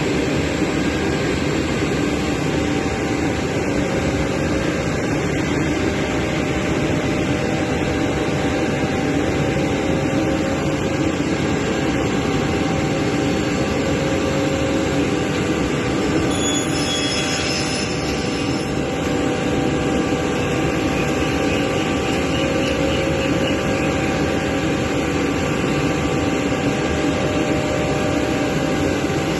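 Törk MP 70 R panel sizing saw running with a steady, even machine noise. A brief higher hiss comes in a little past halfway.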